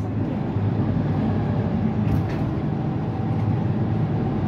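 Mercedes-Benz Citaro C2 city bus's OM936 7.7-litre inline-six diesel engine running with a steady low drone, a little louder from about half a second in.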